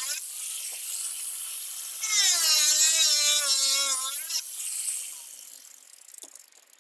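Power tool cutting, its pitch wavering as the load changes, with a rough hiss between the loaded stretches; it winds down and fades out near the end.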